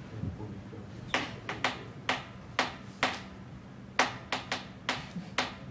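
The rhythm of a well-known song tapped out on a table, so that listeners can guess the tune: about a dozen short, sharp taps in an uneven, tune-like pattern, starting about a second in.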